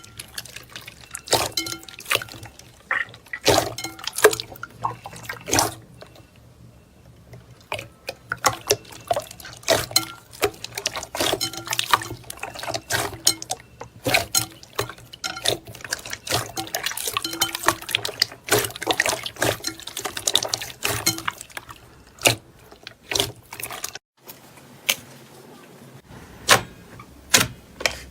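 Slime being squeezed and pressed by hand, giving a dense, irregular run of clicks and pops, with brief lulls about six seconds in and again near the end.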